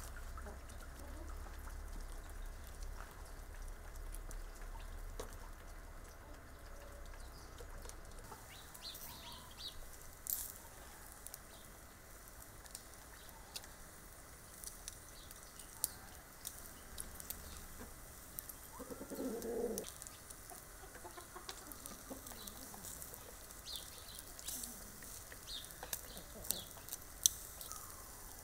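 Chickens clucking faintly at a feeder, then skewers of rolled beef and lamb-fat kebab crackling and sizzling over hot charcoal, with sharp pops from the fat. One short pitched call comes about two-thirds of the way through.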